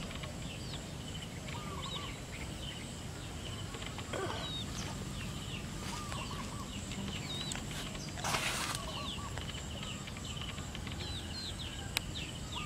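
Small birds chirping over and over in short quick notes over faint outdoor background noise, with a brief rustle about eight seconds in and a single sharp click near the end.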